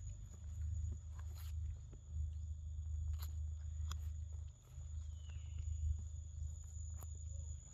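Forest ambience: a steady high-pitched insect drone over a low rumble of wind on the microphone, with scattered clicks and rustles. A short falling whistle comes about five seconds in.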